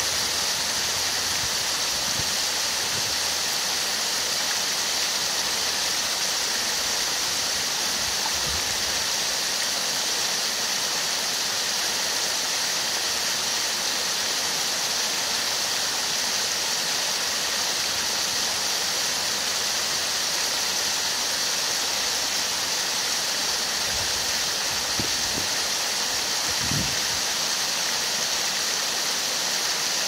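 Small landscaped waterfall tumbling over stacked boulders into a pond: a steady, even rush of falling and splashing water.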